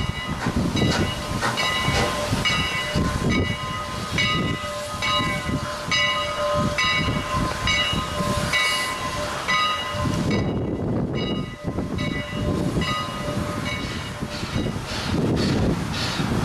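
Canadian National 89, a 2-6-0 Mogul steam locomotive, working along with its bell ringing at about two strokes a second over the rumble and chuff of the engine. The bell dies away about ten seconds in and comes back faintly near the end.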